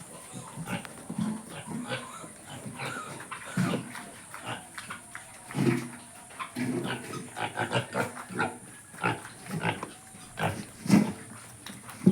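Pigs grunting, a run of short, irregular, low grunts with a few louder ones among them.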